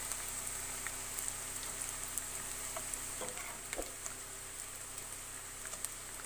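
Sun-dried leftover rice frying in hot oil in a pan: a steady quiet sizzle with scattered small crackles as a slotted spoon stirs the grains, which are puffing up on their way to light brown.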